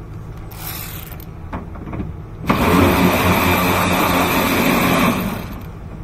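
Power ratchet running steadily for nearly three seconds, starting about two and a half seconds in, as it spins out one of the two 10 mm bolts that hold the outer door handle.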